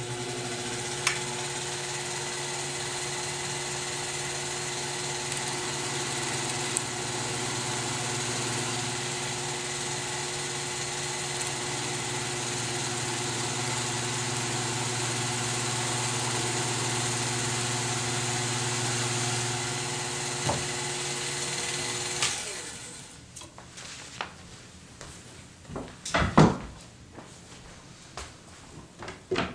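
A small power tool's electric motor spins the pool cue shaft while its new leather tip is sanded to shape. It runs at a steady speed, then stops a little over twenty seconds in, and a few sharp knocks and clatters follow near the end.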